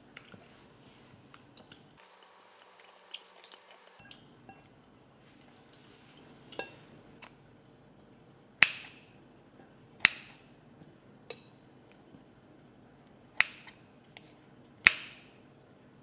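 Tableware clinking: about half a dozen sharp clinks a second or two apart, each with a short ringing tail, the four loudest in the second half.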